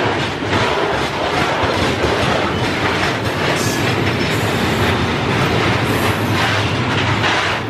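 Freight train of covered hopper wagons rolling past, a steady rumble with repeated clacks as the wagon wheels run over the track.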